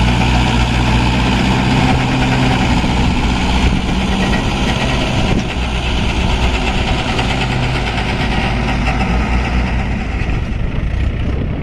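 Heavy diesel engine running steadily close by, from the backhoe loader or one of the tractors or trucks being loaded with mud. Its pitch drops a little and it gets slightly quieter about five seconds in.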